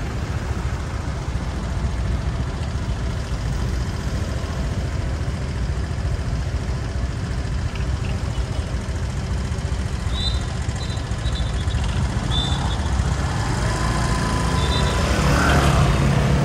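Steady engine and road rumble heard while riding a motorbike through city traffic. A few short high chirps come about two-thirds of the way in.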